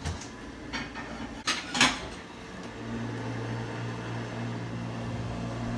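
A kitchen appliance switching on and running with a steady, loud mechanical hum that starts about three seconds in, after two sharp knocks a little before it.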